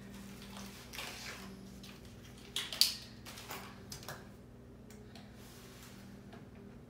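Scattered light clicks and knocks of hand tools being handled, a cordless drill and a plastic drill-bit case, with one sharper click about three seconds in, over a faint steady hum.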